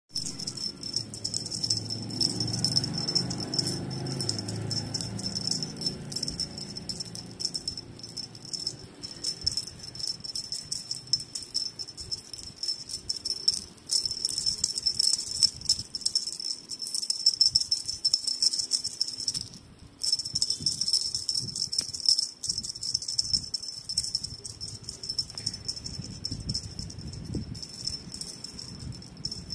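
A cat wand toy rattling and jingling as it is jiggled and batted: a rapid, irregular shaking with a high ringing tone. It stops briefly twice.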